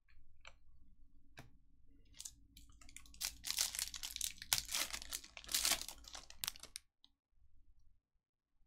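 Foil wrapper of a trading-card pack crinkling and tearing open, loudest from about three to six and a half seconds in, after a few light taps.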